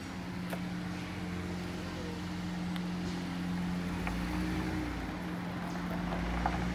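A steady low engine-like hum, with a few faint light clicks.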